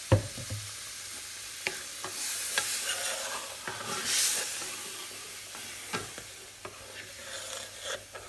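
Roux gravy sizzling in a skillet as a spoon stirs and scrapes through it, just after hot water has been added to the browned flour and oil. A sharp knock comes just after the start and a few lighter taps follow; the sizzle grows louder between about two and four and a half seconds in.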